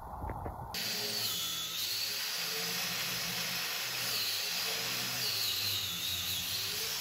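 Power tool running with a steady hiss and a high whine that dips and rises in pitch several times under load. It is cutting down the attachment's bushings so the coupling will fit between them.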